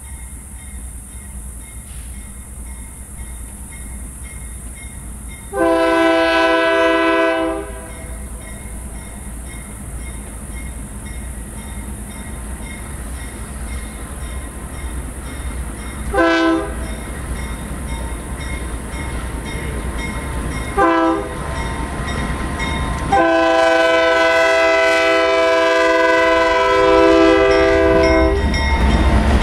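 Diesel locomotive air horn with several chime notes sounding a long blast, two short blasts and then a long, held blast, over the steady low rumble of the approaching locomotives. The rumble grows gradually louder and swells into a louder roar near the end as the train draws close.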